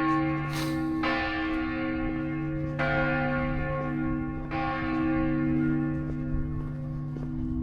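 Church bells ringing: bells struck about every two seconds, their long ringing tones hanging on and overlapping.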